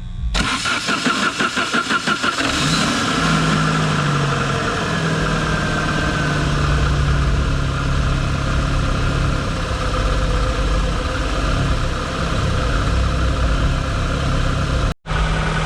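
Car engine cranking with a rapid rhythmic pulse for about two seconds, catching, and settling into a steady idle.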